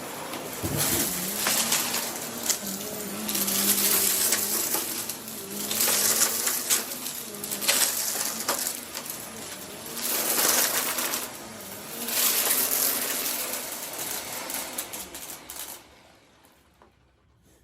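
Vacuum cleaner running as it is worked over the floor, its whooshing hiss swelling and easing every two to three seconds over a wavering motor hum, with small clicks and rattles of debris being picked up. The sound dies away to near silence near the end.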